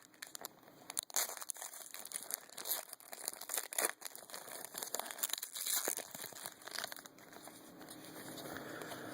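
Trading card pack wrapper being torn open and crinkled, with irregular crackles of the wrapper, then a softer rustle near the end.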